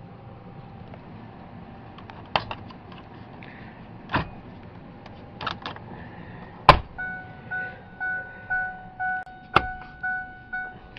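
Plastic dash trim clips on a 1997 Ford Explorer snapping into place several times as the panel is pushed in, the loudest snap a little past halfway. Soon after it the Explorer's warning chime starts, beeping steadily about twice a second: the chime that sounds with the key left in the ignition and the battery connected.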